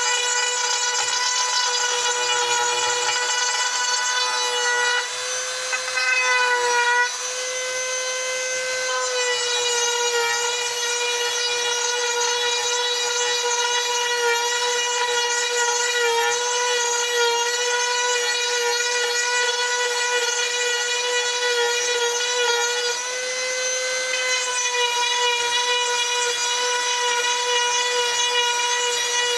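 High-speed electric rotary carving tool whining steadily as it cuts wood, its pitch shifting slightly a few times as the load on the bit changes.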